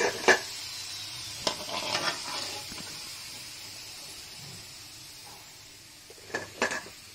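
Hot oil sizzling around kachoris deep-frying in a kadhai, with a metal slotted spoon clinking against the pan as the fried kachoris are scooped out. The sizzle fades slowly as the pan empties; a few sharp clinks come at the start, a cluster about two seconds in, and two near the end.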